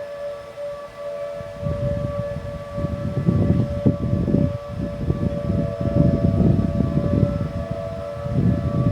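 Several outdoor tornado warning sirens sounding together in a test, heard as overlapping steady tones at slightly different pitches. From about two seconds in, a louder, irregular low rumble comes and goes over them.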